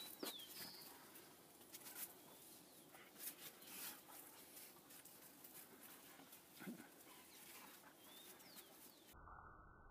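Faint sounds of two dogs play-fighting on dirt: scuffling, with a brief low growl-like sound about two-thirds of the way through.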